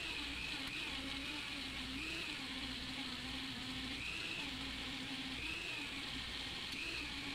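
A small handheld rotary tool polishing a watch case back: a steady motor whine that briefly rises in pitch several times.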